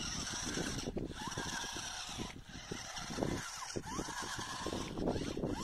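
1/16 scale 4WD rock crawler RC car driving over loose sand and dirt: the small electric drive motor running with uneven crunching from the tyres.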